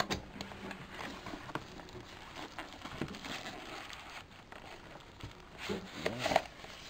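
Cardboard packaging and a plastic bag being handled: rustling and crinkling with scattered clicks, and a brief louder pitched squeak about six seconds in.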